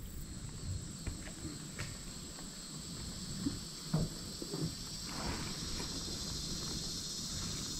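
Steady high-pitched chorus of insects in the woods, with a few soft knocks, the clearest about four seconds in.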